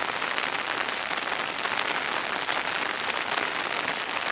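Steady rain falling on an umbrella held overhead, many separate drop hits ticking through an even hiss.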